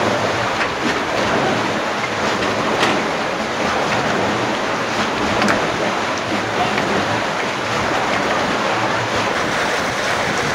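Steady rushing, churning water driven by the steam pumping station's scoop wheel.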